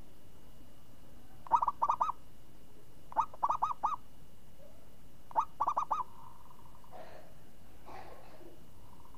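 Zebra dove (perkutut) cooing: three short phrases of four or five quick, clipped coos each, about two seconds apart.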